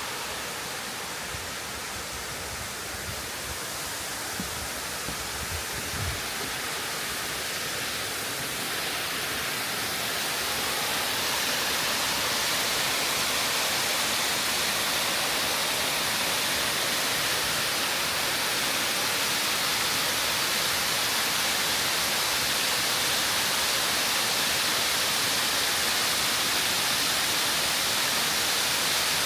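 Kiyotaki waterfall pouring in a steady, even rush of falling water. It grows louder and brighter about ten seconds in, then holds steady.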